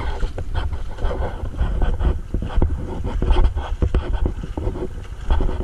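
Heavy rumble and buffeting on an action camera's microphone, with scattered knocks and crackles from the camera being handled outdoors by the river.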